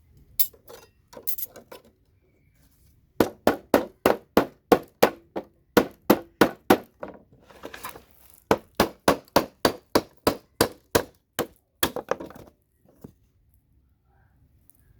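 Hammer blows on a scrap computer motherboard, knocking off the CPU sockets: sharp, metallic knocks at about three a second in two runs, with a short break between.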